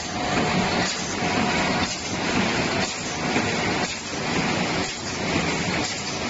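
Automatic can-lid production line running, with punch presses stamping and piercing lids. It makes a dense mechanical clatter that swells and dips about once a second.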